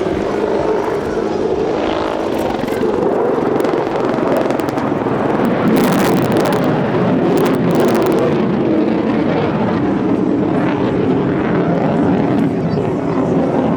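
Boeing AH-64D Apache attack helicopter flying its display, its rotor and twin turboshaft engines giving a loud, steady noise. A cluster of sharp crackles comes through about six to eight seconds in.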